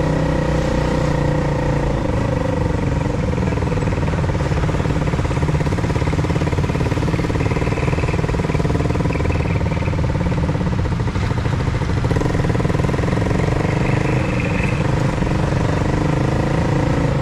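Honda CBR motorcycle running steadily while being ridden, its engine note fairly even over a steady rush of noise.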